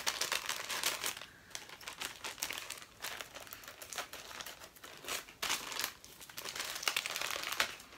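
Plastic parcel packaging crinkling and rustling in irregular bursts as a small mail bag is handled and opened.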